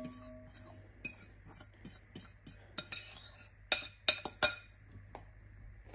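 A metal utensil scraping and tapping couscous out of a bowl into a glass bowl: a run of light clicks and scrapes, with a few sharper clinks about four seconds in. A faint ringing from the bowl fades out in the first second.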